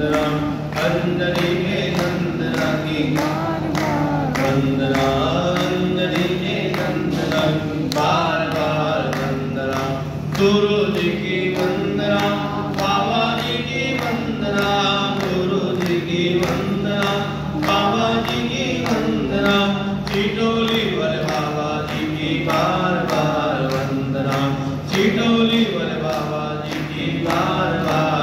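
Hindu devotional bhajan sung by a group, led by a man at a microphone, over a steady low drone and a steady beat.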